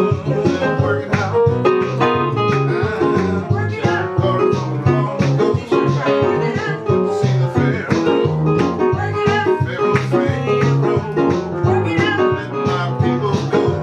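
Guitar music with a steady plucked rhythm over a low bass line.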